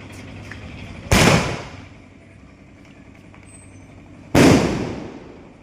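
Sky shot aerial fireworks going off: two loud bangs about three seconds apart, each trailing off over about half a second.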